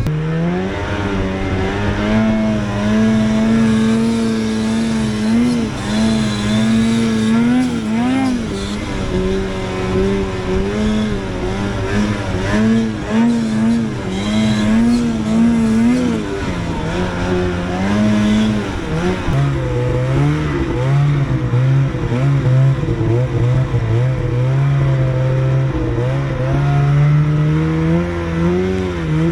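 Two-stroke snowmobile engine running hard while riding, its pitch wavering up and down with the throttle, then settling lower about two-thirds of the way through.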